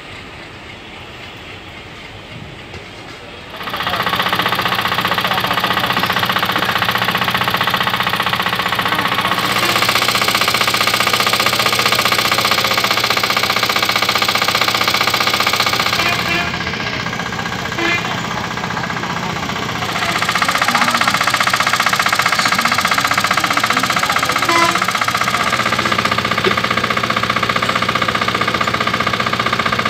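A steady engine hum running continuously, starting about three and a half seconds in after a quieter opening and shifting in tone several times.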